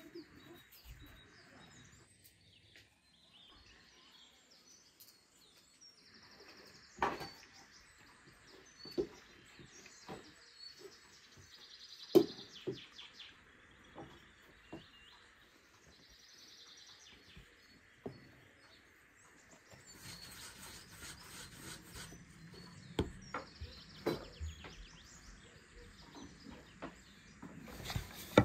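Small birds chirping throughout, over the handling noise of pastry being made on a wooden table. Scattered sharp taps and knocks come through, the loudest about twelve seconds in, and there is a denser rustling over the last third.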